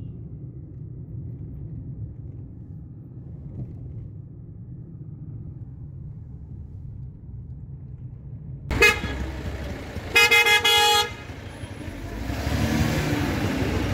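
Low road and engine rumble inside a moving car. Then a vehicle horn gives a short toot about nine seconds in and a longer honk of about a second just after ten seconds. Busier street noise follows near the end.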